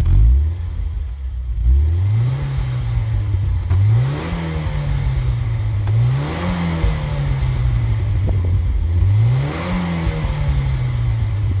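Naturally aspirated 8-valve 2.3-litre four-cylinder engine of a 1992 Volvo 940, heard at the tailpipe, idling and revved four times. Each rev climbs quickly and falls slowly back to idle.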